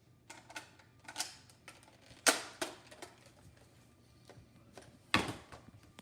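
A handful of sharp plastic clicks and clacks at uneven gaps, the loudest about two seconds in and again about five seconds in: a foam-dart blaster being worked by hand to clear a jam.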